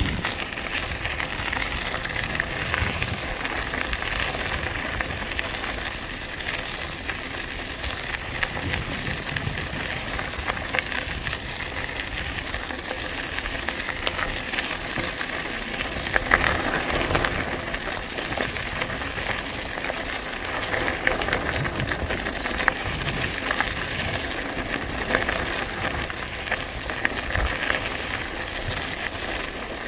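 Mountain bike tyres (a 2009 Giant Boulder SE) rolling over a gravel road: a steady crunching hiss dotted with many small ticks of loose stones.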